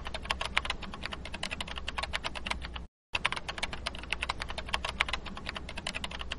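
Computer-keyboard typing sound effect: a rapid, even run of keystroke clicks, about ten a second. It breaks off briefly about three seconds in, then starts again.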